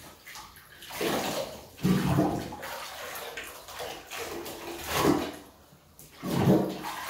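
Water poured from a plastic jug over a wet dog in a bathtub, splashing into the bath in several separate pours, the loudest about two seconds in and near the end.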